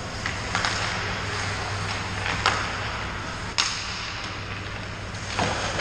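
Ice hockey rink sound: a steady hiss of skates on ice over a low hum, with a few sharp stick-and-puck clacks about half a second, two and a half and three and a half seconds in.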